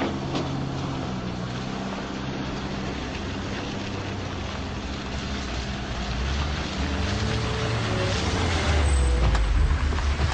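Car driving up and approaching, its engine and tyre noise getting louder over the last few seconds.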